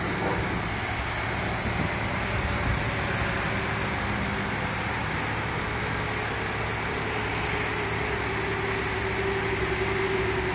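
Flatbed tow truck's engine running steadily while its bed is tilted for loading, with a steady whine from the hydraulic loading gear. The whine grows stronger about seven seconds in.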